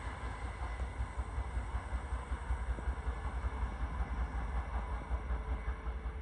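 Train on the line running at a distance: a faint steady whine over an uneven low rumble.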